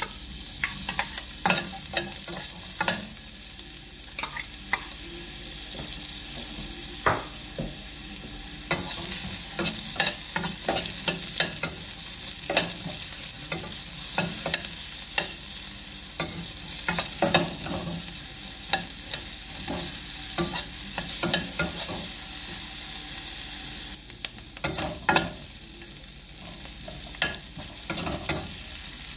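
Sliced onions sizzling in hot olive oil in a stainless steel wok, stirred with a metal spoon that clinks and scrapes against the pan at irregular intervals. The sizzle dips briefly near the end.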